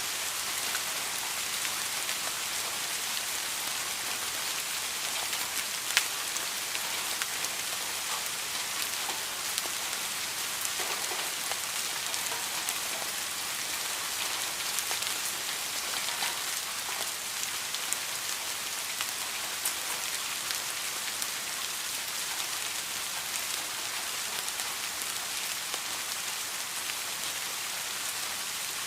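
Steady rain falling: an even hiss of rain with scattered sharper drop ticks, one louder tick about six seconds in.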